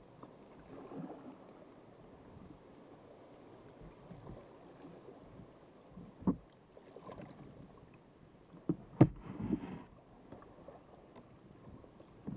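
Sea kayak paddle strokes dipping and pulling through calm water about every three seconds, with drips and small splashes. There are a few sharp knocks, the loudest about nine seconds in, followed by a brief splash.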